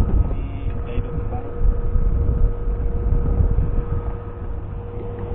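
Small outboard motor of an inflatable boat running with a steady hum, under low rumbling wind buffeting the microphone.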